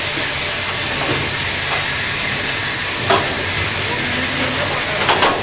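Steady steam hiss and running noise heard in the cab of BR Standard Class 2 2-6-0 No. 78022, with a short sharp click about three seconds in and a few more just before the end.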